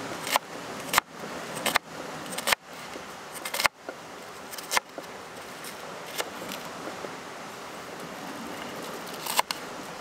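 Knife dicing a red onion on a wooden cutting board: sharp knocks of the blade on the board about once a second for the first five seconds, then a few seconds without knocks, and one more knock near the end.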